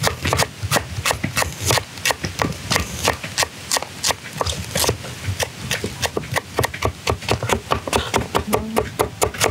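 A kitchen knife slicing shallots on a wooden chopping board: quick, regular knocks of the blade against the board, about three or four cuts a second.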